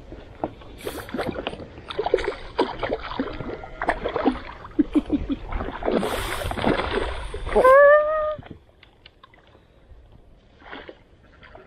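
Water splashing and sloshing, irregular, as a hooked brown trout thrashes close in while being landed. About eight seconds in, one short high-pitched whoop from a person, the loudest sound, after which the splashing dies down.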